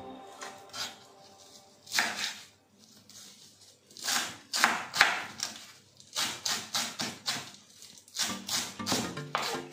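Chef's knife chopping fresh cilantro on a wooden cutting board: short runs of quick, sharp chops, over light background music.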